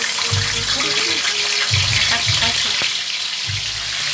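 Milkfish (bangus) slices frying in hot oil in a wok: a steady, dense sizzle, with a low rumble that comes and goes every second or so.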